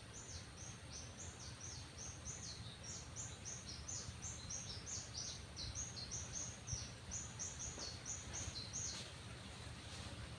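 A bird calling a long run of quick, high repeated notes, about three to four a second, that stops about nine seconds in, over a steady low rumble.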